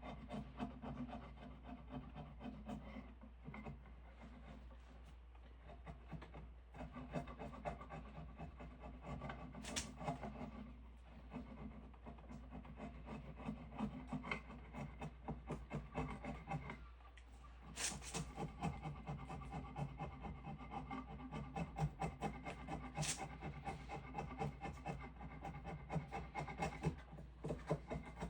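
Hand abrading of a diamond willow stick: rapid back-and-forth rubbing strokes on wood, pausing briefly a few times, over a steady low hum.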